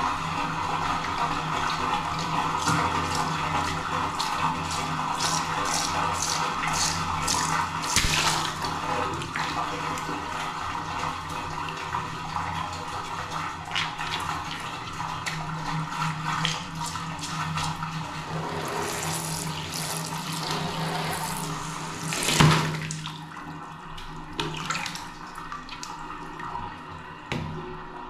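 Water splashing and trickling as hands squeeze and handle filled water balloons in a plastic tub of water. There is a sharp burst about a third of the way through and a louder one about three quarters through, as balloons pop and release their water.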